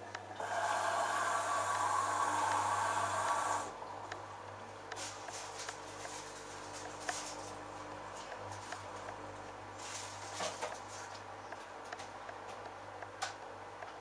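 LG Direct Drive front-loading washing machine mid-cycle: a loud hiss of water running in for about three seconds near the start, then water sloshing in the drum with soft clicks over a low steady hum.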